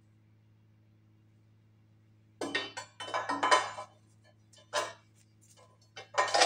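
Steel pieces clanking against the steel die and bed of a homemade hydraulic press brake as a workpiece is handled and laid in: a cluster of sharp metal clanks from about two and a half seconds in, then single clanks near the end. Under them runs the steady hum of the press's running hydraulic pump unit.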